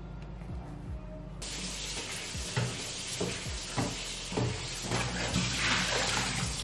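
Kitchen tap running hard into a sink, starting abruptly about a second and a half in, with a few light knocks of a pot or strainer, as cooked buckwheat noodles are rinsed under the tap.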